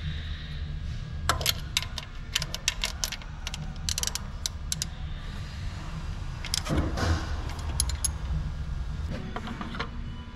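Sharp metallic clicks and clinks of a ratchet and Allen key working the timing-belt tensioner on an Opel Z18XE 1.8 16V engine, coming in irregular clusters, over a steady low hum.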